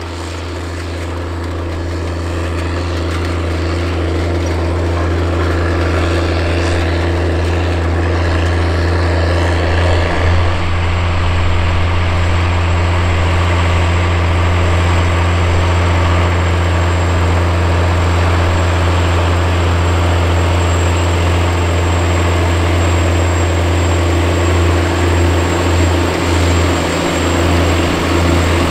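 Diesel engine of a Case IH 535 HD Steiger articulated four-wheel-drive tractor running steadily under heavy load, pulling a wide vertical tillage tool through the soil. A deep, even drone that grows louder over the first ten seconds or so and then holds.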